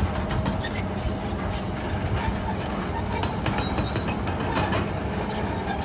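Demolition machinery working concrete rubble: diesel engines run steadily, with frequent irregular clanks and crunches of broken concrete.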